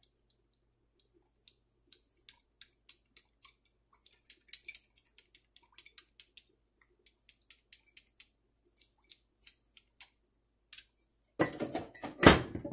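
Oil heating in a non-stick pan, giving faint, irregular ticks and crackles, then about a second of much louder clattering noise near the end.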